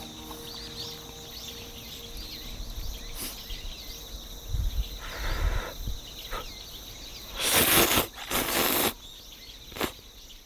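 Small birds chirping over steady outdoor background noise, with a few held music tones fading out in the first three seconds. About seven and a half seconds in come two loud rushing noises, each about half a second to a second long.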